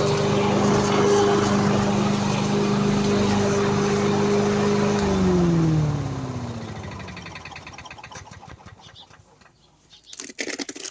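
Victa rotary lawn mower's Briggs & Stratton engine running steadily at speed, then shut off about five seconds in and spinning down over the next few seconds with falling pitch until it stops.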